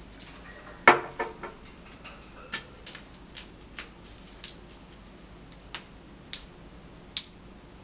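Plastic candy wrappers being picked at and pulled open by hand, giving scattered sharp crinkles and clicks, with a short loud sound about a second in.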